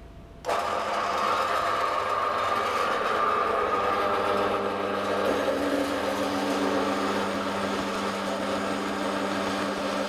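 A 4x6 metal-cutting bandsaw switched on about half a second in, then running steadily as its blade cuts through a 12 mm steel rod. Its sound shifts lower partway through.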